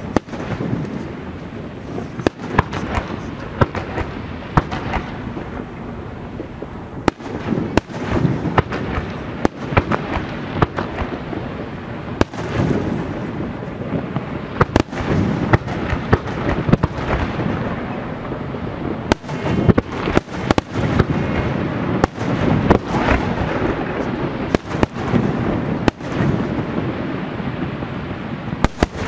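Aerial fireworks display: shells bursting one after another in a steady barrage, with sharp bangs, often several a second, over a continuous low rumble of booms.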